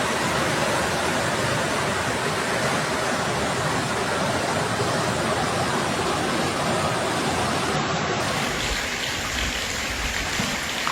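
Steady rushing noise of fast-flowing floodwater from a river over its banks. About eight seconds in the sound changes, with a low rumble coming in.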